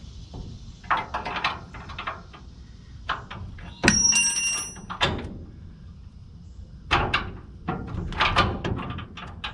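Series of hammer knocks and taps on steel U-bolts being driven into a truck's lower control arm, in uneven clusters. About four seconds in, one metallic clang rings for about a second. The U-bolts are sprung a little too wide for their holes and will not go in easily.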